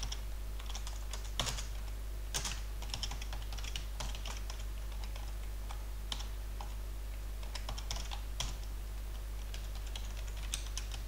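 Typing on a computer keyboard: short runs of keystrokes with brief pauses between them, over a steady low hum.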